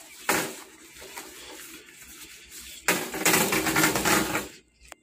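Handling noise from work on a TV's metal backlight tray: a sharp knock just after the start, then about a second and a half of rubbing and clattering from about three seconds in.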